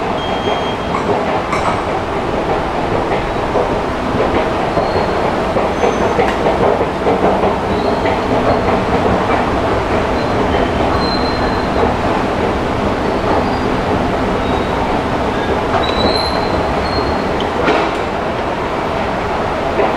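Steady rumble of an underground metro station, with a few short high squeaks.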